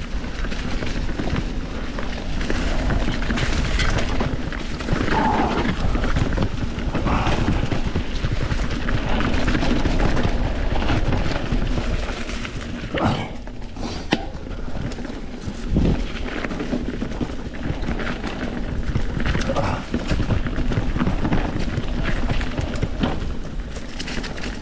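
Polygon D6 mountain bike riding over a dirt trail: steady tyre and drivetrain noise with sharp knocks and rattles from the frame over rough ground, a few of them standing out in the second half, under a heavy low rumble of wind on the microphone.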